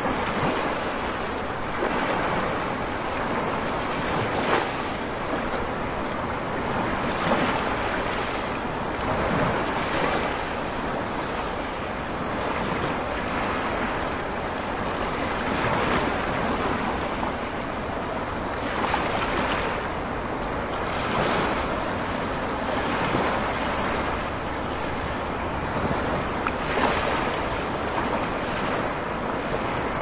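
Ocean surf: waves breaking and washing ashore in a continuous rushing noise that swells and eases every two to three seconds.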